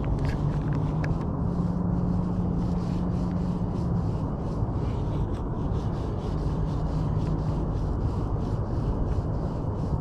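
Spinning reel being cranked on a steady retrieve, a soft regular ticking whirr of about three turns a second, over a low steady hum and rumble of wind on the microphone.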